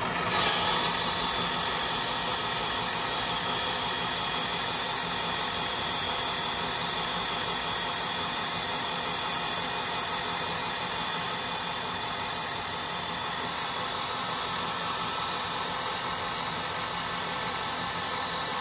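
Colchester Student lathe taking a heavy roughing cut in hardened 17-4 PH (H1025) stainless steel with a carbide TCMT insert at 1000 rpm, 1.5 mm depth of cut. The sound comes in as the tool enters the cut and runs steadily, with a high-pitched whine over it.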